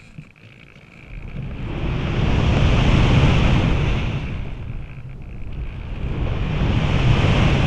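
Wind rushing over a model glider's onboard camera, swelling and fading twice as the glider climbs and dives, with a steady high whistle on top.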